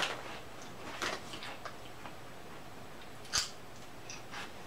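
Crisp crackles of Lay's potato chips being crunched, along with the crinkle of the chip bag being handled; a few short, sharp crackles, the loudest about three and a half seconds in.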